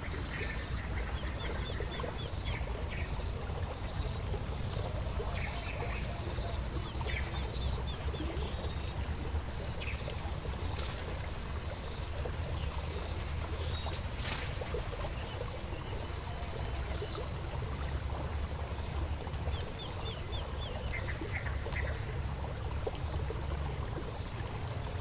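Steady high-pitched drone of crickets or cicadas, with short chirping bird calls every few seconds over a low rumble.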